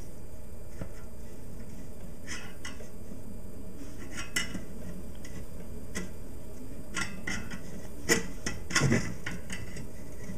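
Scattered clicks and knocks of a plastic vent register being handled and knocked about, with a louder clatter of several knocks about eight to nine seconds in.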